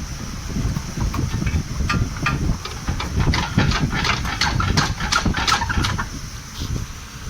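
Metal-on-metal clicking from tool work under the car: a run of sharp clicks, a few per second and loudest in the middle, over a steady low rumble and a faint hiss.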